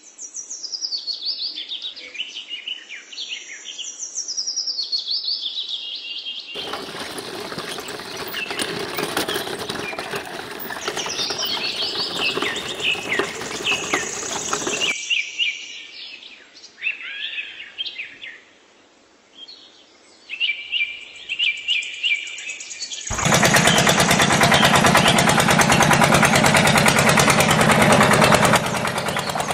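Birds chirping and calling, with a steady rushing noise behind them for several seconds in the middle. About six seconds before the end, a loud small motor starts running, driving a miniature belt-driven water pump.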